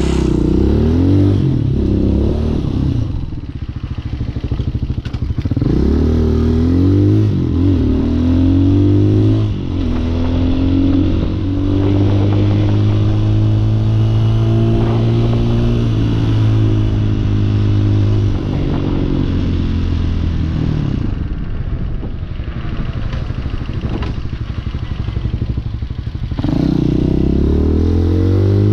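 Hawk 250 motorcycle engine running under way on a fresh E3 spark plug. Its pitch rises and falls several times through throttle and gear changes, holds steady for several seconds mid-way, drops lower for a few seconds and then climbs again near the end.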